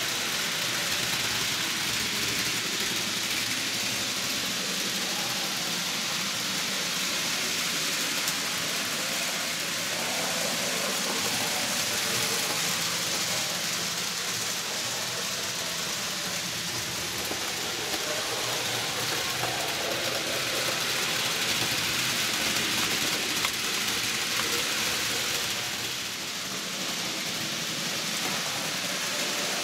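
N gauge model trains running on the layout's track: a steady rolling hiss and rumble of small wheels and electric motors, easing slightly near the end.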